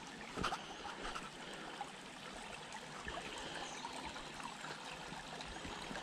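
Shallow creek trickling over rocks, a steady hiss of running water, with a footstep on the dirt trail about half a second in.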